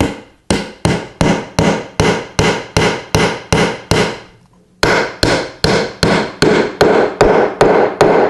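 A hammer drives wooden dowel pegs into drawbored holes through an ash mortise-and-tenon joint, in quick blows about three a second. There is a short break a little over halfway, then a second run of blows. The offset holes make each peg bend as it goes in, pulling the tenon tight into the mortise.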